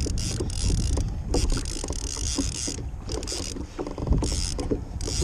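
Fishing reel under load from a hooked fish: mechanical clicking and ratcheting from the reel and its drag in spurts, with a quick run of clicks just under four seconds in. Wind rumble and water hiss sound throughout.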